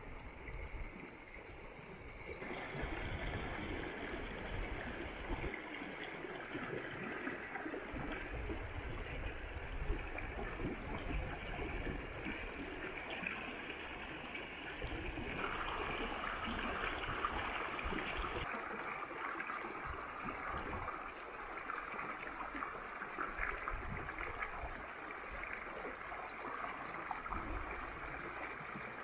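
Shallow river running over rocks in small riffles: a steady rushing and gurgling of water. Its tone shifts about two seconds in and again about two-thirds of the way through.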